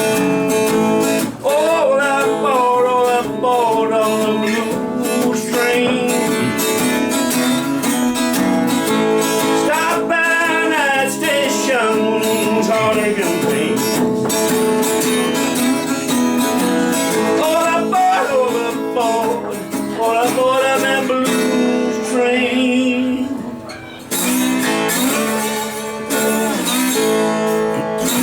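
Live acoustic guitar strumming a blues accompaniment in an instrumental break, with a lead melody of bending, wavering notes over the chords.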